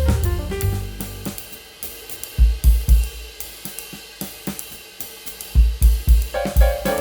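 Background music with a drum kit: melody and bass drop out after about a second and a half, leaving a short break of hi-hat and bass-drum hits, then the full band comes back in near the end.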